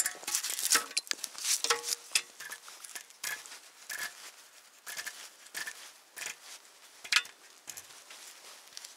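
Irregular sharp clicks, crunches and light metallic clinks, the sound of gear such as an ice auger being handled and stowed.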